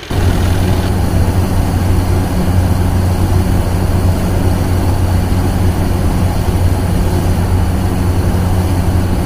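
Aircraft engine drone: a loud, steady roar with a low hum under it, cutting in abruptly at the start.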